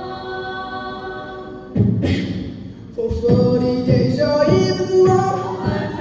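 Mixed-voice a cappella group singing: held chords in harmony, then about two seconds in a vocal-percussion beat comes in with regular low thumps about twice a second, and the voices sing a melody over it.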